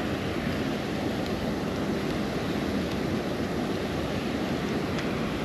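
Steady rush of water pouring through a lake spillway, an even, unbroken noise.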